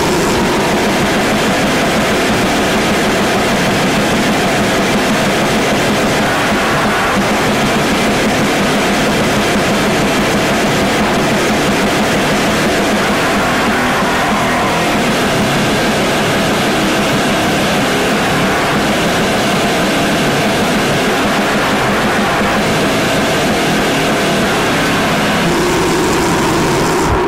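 Lo-fi bestial black metal/noise recording: a dense, unbroken wall of distorted noise at a steady loudness.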